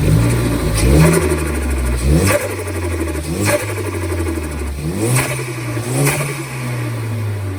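Ford Focus ST's turbocharged 2.0 EcoBoost four-cylinder revved in short blips about five times while parked, heard from near the intake filter. A quick flutter comes from the Go Fast Bits DV+ diverter valve as the throttle snaps shut after the blips.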